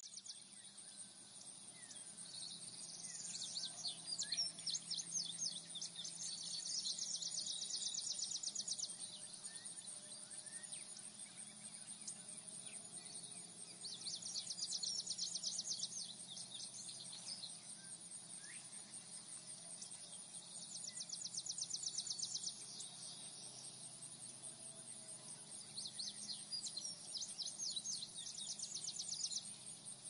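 Insects trilling in rapid, high-pitched pulses that come in bouts of two to three seconds, repeating throughout, with a few thin bird chirps in between.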